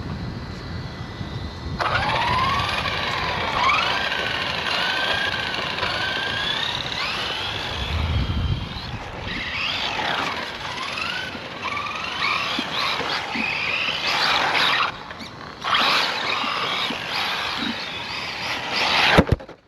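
Electric motor of an RC rally car whining as it is driven, its pitch rising and falling again and again as the car speeds up and slows, over the rumble of tyres on the road. The sound cuts off suddenly near the end.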